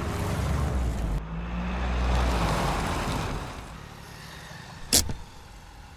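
Car engine and road noise: a steady low hum that swells and then fades over the first few seconds. A single short, sharp knock comes about five seconds in.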